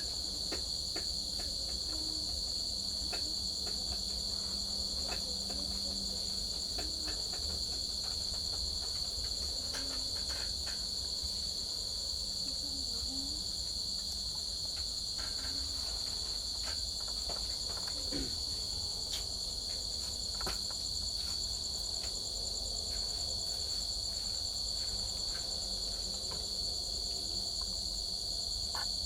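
Crickets chirping in a continuous, fast-pulsing high trill that holds steady, with a few faint clicks over it.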